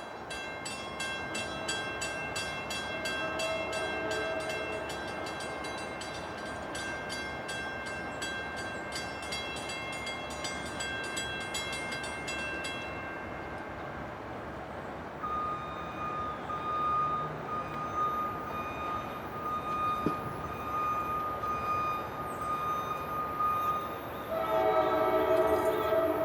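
An NJ Transit commuter train arriving, its horn sounding a long chord that holds for about thirteen seconds. A single steady high-pitched tone follows, then another loud horn blast near the end.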